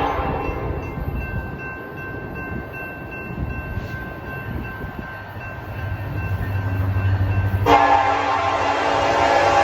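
Locomotive air horn: one blast dies away just after the start, a low engine rumble grows as the train nears, and about three-quarters of the way through a loud horn blast starts abruptly and is held.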